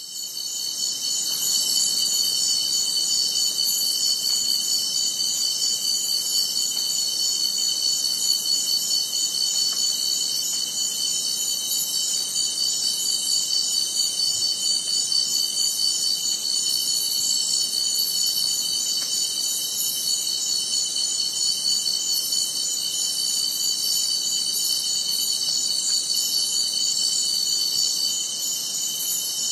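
Chorus of night insects: several steady, high-pitched trills layered over one another, each with a fine rapid pulse.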